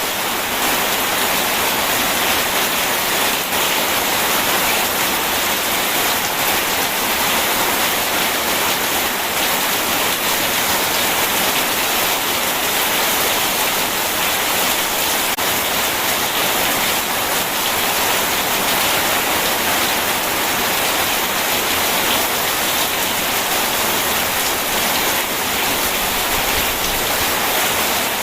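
Steady rain mixed with rushing river water, a dense, even hiss that does not change.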